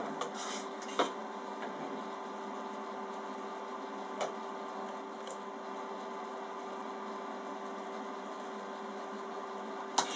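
Automatic wire-leader twisting machine idling between twisting runs: a steady electrical hum with a faint held whine from its motor drive, broken by sharp clicks about a second in, about four seconds in, and near the end.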